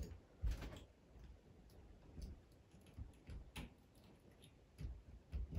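Faint, irregular clicks and scrapes of pliers gripping and straightening twisted copper earth wires, with a few soft handling bumps.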